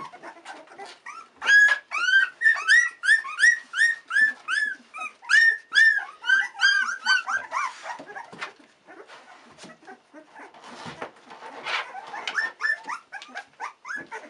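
Sixteen-day-old Australian cattle dog puppies crying in a quick run of high squeals that rise and fall, about three a second, for around six seconds. The cries then trail off into soft rustling, and fainter cries come back near the end.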